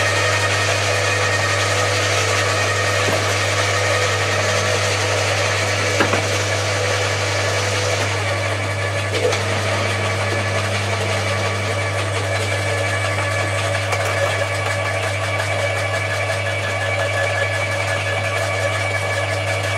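Electric roller garden shredders, a Bosch AXT 2300 and an Atika LH 2500, running with a steady motor hum while thuja hedge cuttings are fed in and crushed. There are a couple of brief sharp cracks as twigs break.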